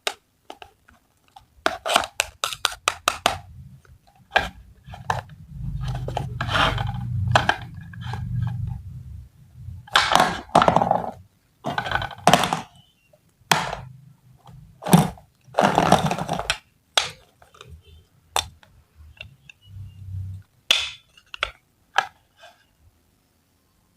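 Hands handling a toy kitchen set and fruit on a desk: a quick run of sharp clicks early on, then knocks, thunks and longer scraping handling noises.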